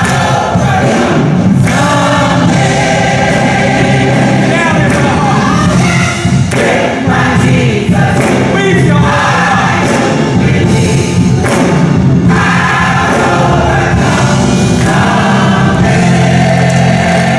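Gospel mass choir singing a hymn, loud and sustained, with instrumental accompaniment.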